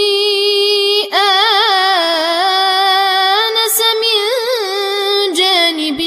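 A boy's voice chanting Quran recitation in the Warsh reading, drawing out long, ornamented notes on the verse's held vowels, with a short breath about a second in.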